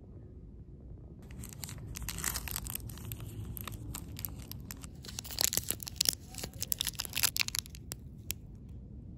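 Foil-lined fruit-snack wrapper being crinkled and torn open by hand. Dense crinkling starts about a second in, and the sharpest, loudest tearing and crackling comes a little past halfway.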